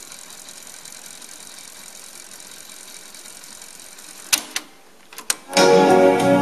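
Pioneer CT-F500 cassette deck fast-winding the tape with a steady whir. Its transport keys then clunk several times, about four to five seconds in, and music starts playing from the tape just before the end.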